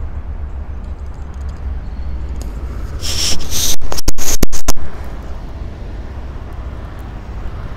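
Low steady rumble on the microphone. About three seconds in there is a loud, scratchy rush of noise on the microphone lasting under two seconds, as the phone is moved from the roof down to the front of the vehicle.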